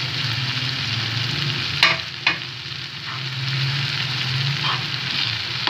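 Chopped tomatoes and green chillies sizzling in a non-stick frying pan while a metal spoon stirs them, with two sharp knocks of the spoon against the pan about two seconds in.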